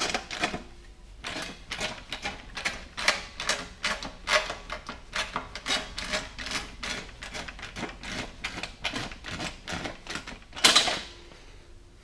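Deep-throat metal shrinker's jaws clacking as they bite a sheet-metal panel flange in a quick series of strokes, a few a second, shrinking the flange so it can be bent to 90 degrees without wrinkling. A louder clatter comes near the end, then the strokes stop.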